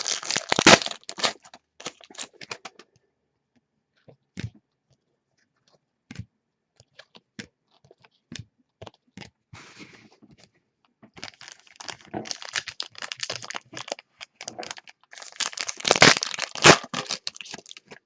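Trading card pack wrappers being torn open and crinkled, with sharp clicks and snaps of cards being handled in between. The crackling comes in two spells, at the start and again for several seconds near the end, with isolated clicks between them.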